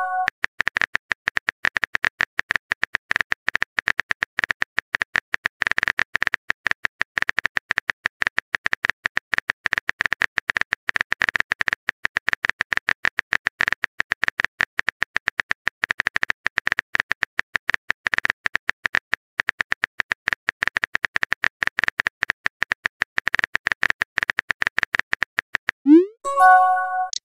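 Simulated phone keyboard typing, a fast stream of sharp key-tap clicks as a chat message is typed out. About a second from the end comes a short rising swoosh and chime as the message is sent.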